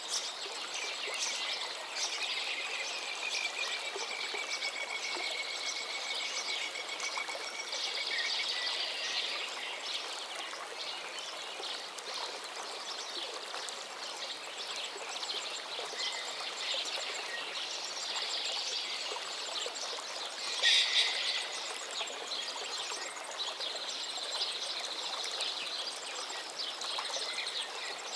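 Chorus of small songbirds chirping and trilling over a steady background hiss, with one louder call about two-thirds of the way through.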